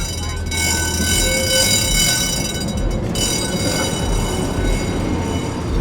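Tatra T3 tram running on its rails, with a steady low motor hum and a high-pitched whine that cuts off about three seconds in.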